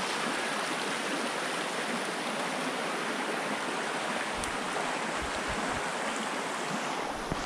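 Shallow rocky creek running over stones: a steady, even wash of flowing water.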